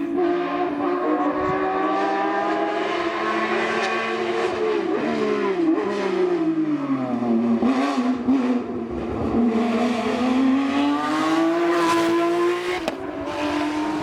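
Hillclimb race car engine running at high revs, its pitch falling about five seconds in as it slows, then rising steadily again as it accelerates, with a brief break near the end.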